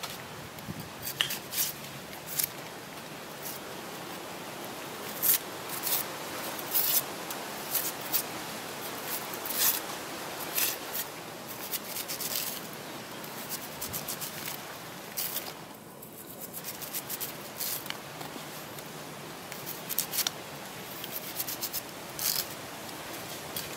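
Knife cutting wedges from a peeled onion held in the hand, a series of short, crisp cuts coming irregularly about once a second, sometimes several in quick succession.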